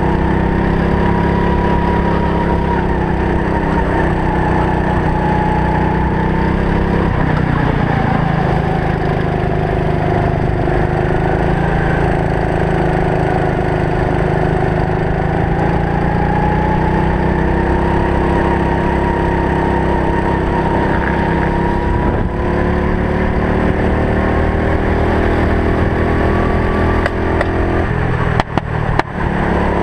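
Racing kart's engine running close to a helmet camera, its pitch slowly rising and falling as the kart speeds up and slows through the corners. A few brief dropouts and knocks near the end.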